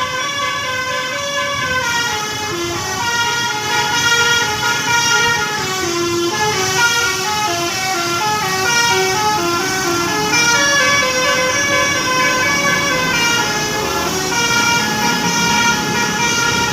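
Telolet bus horn, the multi-tone musical air horn of an Indonesian bus, playing a tune of short stepped notes, several pitches sounding together, without a break.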